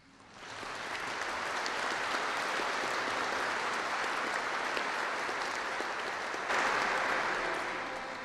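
Audience applauding: the clapping builds over the first second, holds steady, gets louder about six and a half seconds in, then tapers off toward the end.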